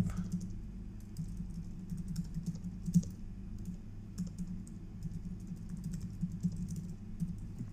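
Typing on a computer keyboard: irregular, quick keystrokes as code is entered, with one louder key click about three seconds in.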